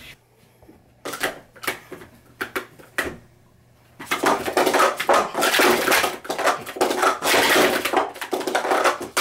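A few separate sharp clicks, then about five and a half seconds of rapid, continuous clattering of hard plastic sport-stacking cups being stacked and unstacked on a mat during a timed cycle. The clattering stops abruptly at the end.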